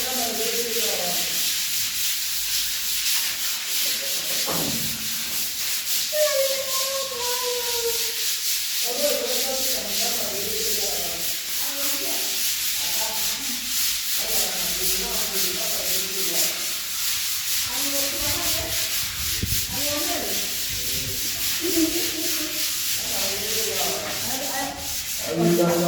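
Continuous scraping hiss of a plastered wall being sanded smooth in preparation for final painting.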